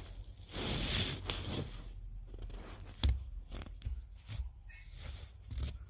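Rustling and crunching of attic insulation being handled, with a sharp knock about three seconds in and a few softer thumps after.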